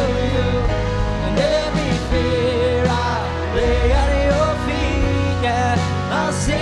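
Live worship band playing a song with a sung melody over electric guitar, bass and drums.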